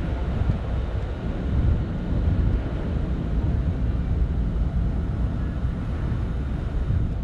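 Wind buffeting the camera microphone, a steady low rumble that swells and dips, over the distant hum of the harbour and city.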